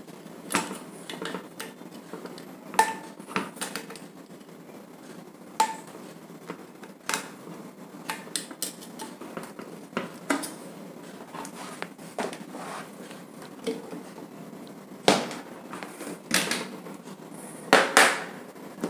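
Small metal clicks, scrapes and clinks as a screwdriver takes out a screw and the sheet-metal back cover of an exhaust fan's motor is handled, with a few louder knocks near the end.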